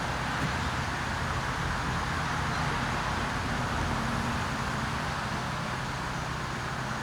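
Steady background noise: an even hiss with a low hum underneath and no distinct events.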